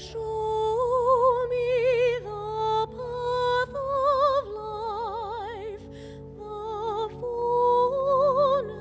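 Communion music: a solo voice sings a slow melody in long held notes with wide vibrato, over a soft, steady low accompaniment.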